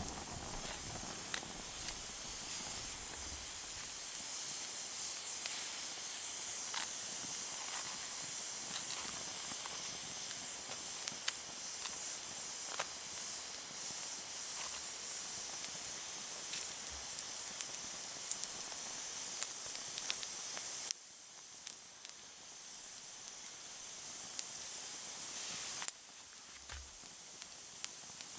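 Wood campfire burning: a steady hiss with scattered sharp crackles and pops. The level drops abruptly twice in the second half.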